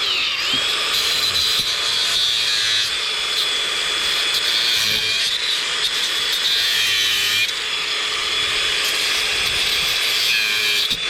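Power cutting tool running continuously, its high whine dipping in pitch each time it bites, as it cuts through the curved-over copper windings on the back side of an electric motor.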